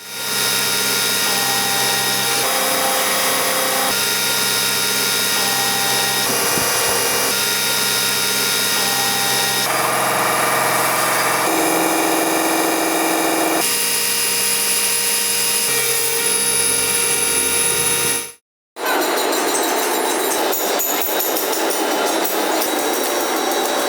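Electric power tool running steadily while grinding or sanding steel, with its tone shifting from one stretch to the next and a short break about two-thirds of the way through.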